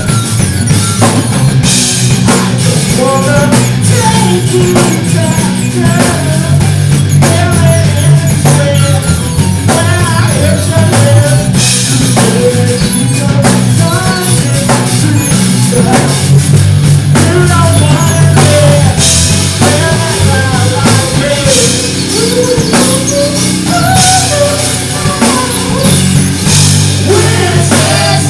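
Live rock band playing: drum kit, electric guitar and a steady bass line, with a singing voice over it.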